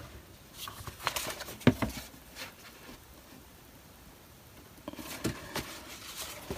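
Sheets of grey cardboard and packaging card being handled on a cutting mat: light taps, slides and rustles, clustered in the first two seconds or so and again near the end, with a quiet stretch between.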